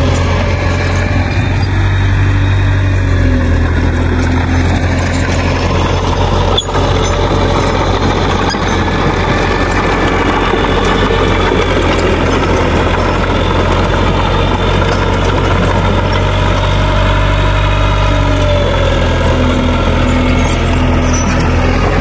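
Mitsubishi crawler bulldozer's diesel engine running steadily under load as the machine pushes rubble with its blade.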